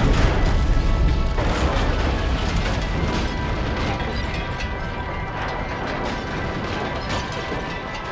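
The low rumble of a huge oxy-acetylene gas explosion tearing apart a car, fading slowly, with scattered crackles. Steady musical tones rise beneath it toward the end.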